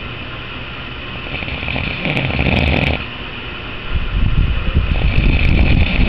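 Snoring: a rough snore about two seconds in, then a longer, louder rasping snore from about four seconds to the end, over a steady high hiss.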